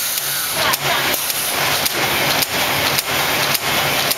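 Automatic cold-cut T-shirt bag-making machine running: a steady hiss with a sharp, regular clack about twice a second as it cycles.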